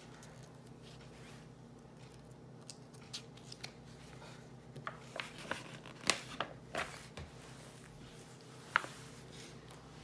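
Pages of a paperback picture book being turned and pressed flat by hand: a scattered series of short paper rustles and clicks over a faint steady hum.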